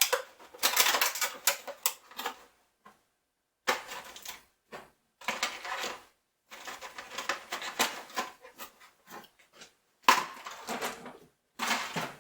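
Metal sockets clinking and clattering against each other as they are picked through and set down, in irregular runs of sharp clicks broken by a few brief pauses.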